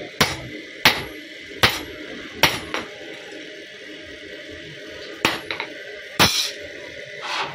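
Hand hammer striking a steel knife blade laid on a steel block, sharp metal-on-metal blows with a short ring: four blows about a second apart, a pause of a couple of seconds, then two more.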